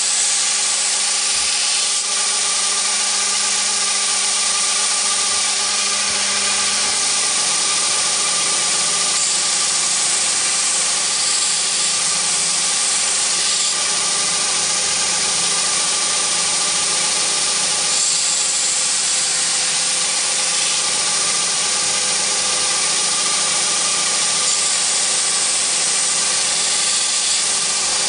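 Belt grinder running steadily with a steel knife blade pressed against its abrasive belt at the contact wheel: an even grinding hiss over the machine's steady hum.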